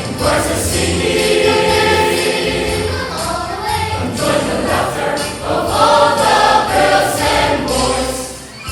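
Church choir singing a lively Christmas anthem in full voice, with instrumental accompaniment and a steady bass line underneath.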